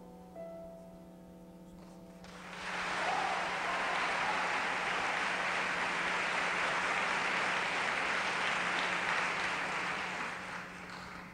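The song's last held notes die away, then a concert-hall audience breaks into sustained applause about two seconds in, which begins to fade near the end.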